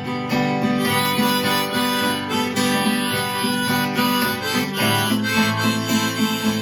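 Instrumental break of a folk song in G: harmonica playing a melody over strummed acoustic guitar.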